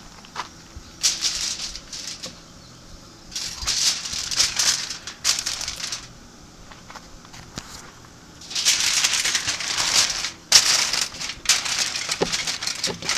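Aluminium foil crinkling and crumpling as hands fold it around a cooked rump roast to wrap it for resting. It comes in three spells, the longest near the end.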